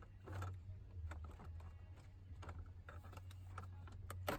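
Scattered light clicks and knocks of plastic steering column cover parts being handled and worked loose, with a louder knock near the end, over a faint steady hum.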